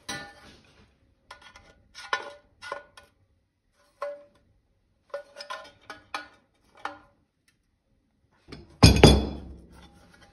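A sheet-metal drawer and hand tools clinking on a workbench: a run of short metallic clinks and knocks, each ringing briefly, then one louder clang with a longer ring about nine seconds in.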